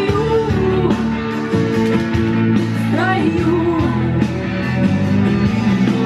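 A rock song with a singer and backing band playing loudly.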